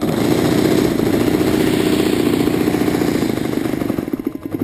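Four-stroke nitro glow engine of a radio-controlled airplane running after it started backwards, then slowing near the end, its separate firing beats becoming audible as it winds down.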